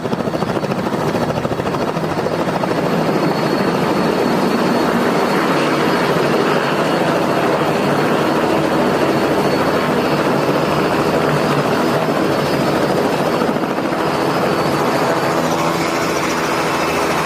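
Helicopter coming in to land: the fast, even chop of its rotor blades with a thin, steady, high turbine whine over it, loud and unbroken.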